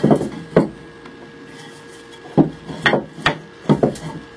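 Planed wooden stool parts knocking against each other and against the workbench as they are turned over and laid down: two knocks near the start, then a quick run of about five more in the second half.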